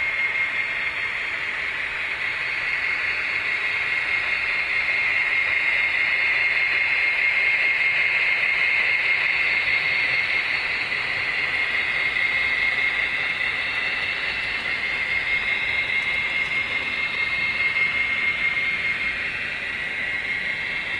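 Model train running past on layout track: a steady high whine over a hissing rolling rattle from the locomotive and cars, swelling slightly as the train passes.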